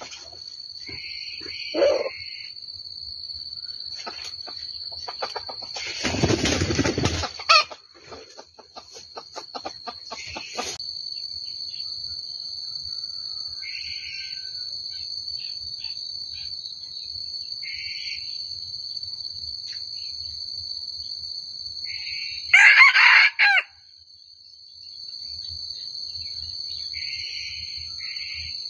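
Wild junglefowl rooster crowing once, a short crow about two-thirds of the way in, with a few brief fainter calls scattered before it. A steady high-pitched drone runs throughout, and there is a loud burst of noise about six seconds in.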